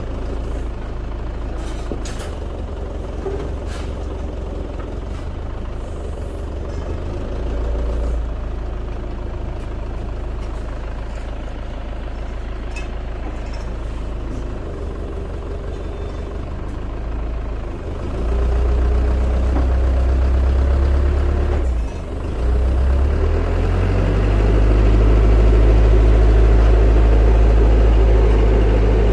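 Isuzu Elf crane truck's diesel engine running steadily, then revving up in two steps in the second half, as it does when it drives the crane's hydraulics to lift a heavy load.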